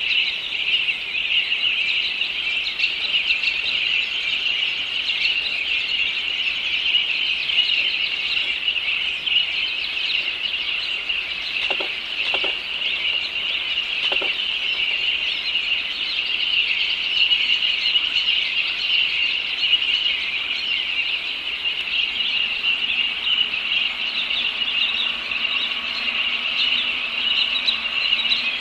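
Continuous dense chorus of small birds chirping around a bald eagle nest, with a couple of soft knocks about twelve and fourteen seconds in.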